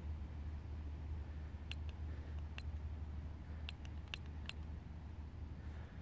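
Woodland ambience: a steady low rumble with a scatter of sharp, high tick calls from a small bird, about seven of them between two and five seconds in.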